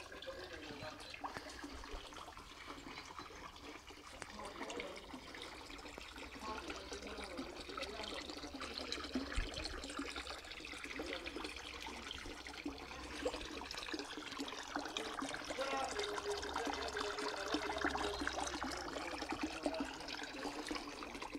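Water trickling and bubbling steadily into a small garden pond, a little louder in the second half.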